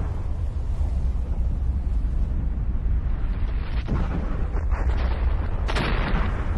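Volcanic eruption sound: a continuous deep rumble with three sudden explosive blasts in the second half, the last one the sharpest.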